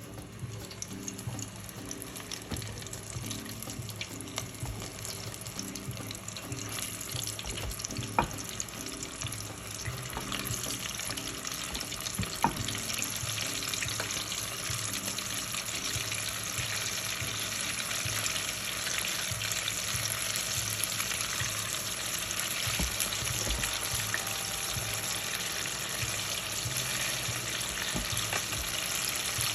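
Dredged chicken pieces deep-frying in hot canola and vegetable oil: a steady sizzle that grows louder, with two sharp taps about eight and twelve seconds in.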